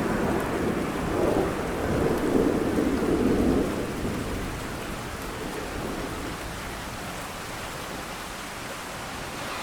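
Steady rain with a low rumble of thunder that swells about a second in and fades away after about four seconds.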